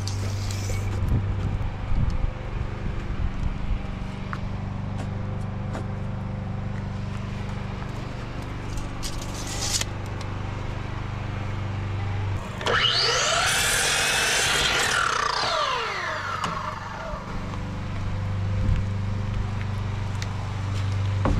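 Electric miter saw spinning up, cutting through a wooden siding board and winding down, its whine rising sharply and then falling away over about four seconds, a little past halfway through. Before and after it, a steady low hum with scattered handling clicks.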